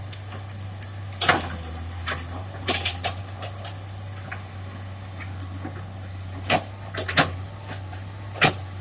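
Construction-site sound: a machine's steady low hum with irregular sharp knocks and clinks over it, the loudest of them near the middle and again near the end.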